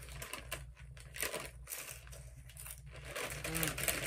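Crunching of Doritos tortilla chips being chewed, mixed with the crinkle of the plastic chip bag as a hand rummages in it.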